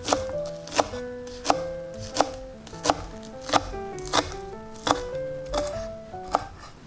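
Chef's knife chopping scallions on a wooden cutting board: about ten sharp, even knocks, roughly one every 0.7 seconds, over piano background music.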